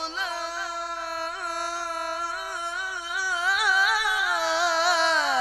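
Male Qur'an reciter's voice in melodic tilawah style, holding one long unbroken melismatic note with quick wavering turns, sliding down in pitch near the end.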